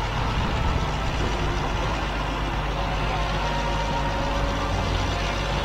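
Steady low mechanical hum, engine-like, with no sudden sounds, under open-air background noise.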